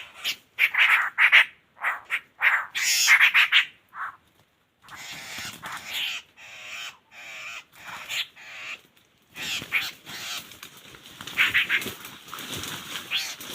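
Laughingthrush calling: a quick run of short, loud calls, a brief pause about four seconds in, then quieter, busier calling.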